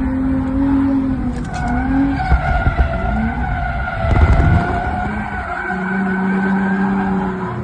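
Car drifting: tires squealing with a wavering pitch over a running engine.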